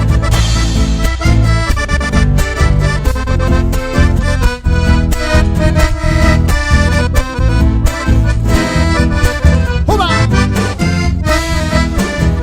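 Live band playing an instrumental passage of a folk dance tune led by accordion, over bass and a steady beat.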